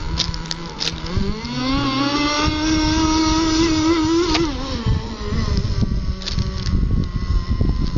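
Engine of a CEN Racing Gray Thunder GP radio-controlled boat revving up about a second in, holding a high steady pitch, then dropping back off near the middle.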